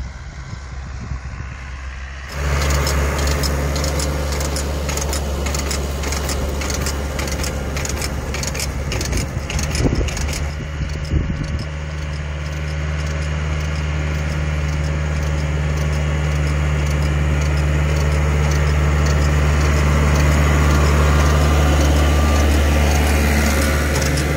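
Tractor engine running steadily under load as it tows a compost spreader, with the spreader's mechanism rattling and clicking as it flings compost. The sound is faint and distant at first, then jumps up loud about two seconds in and swells a little louder towards the end.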